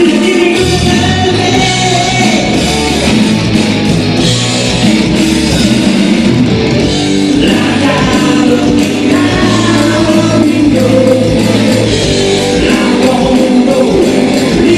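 Live rock band playing loud: a man singing into a microphone over electric guitar, bass guitar and a drum kit.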